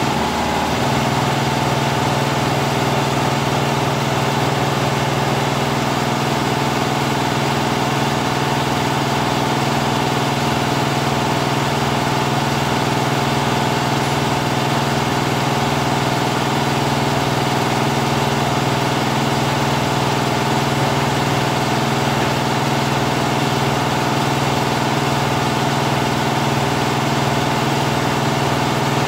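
Richpeace 12-head flat embroidery machine running, all heads stitching at once: a steady, even mechanical running noise during a test run.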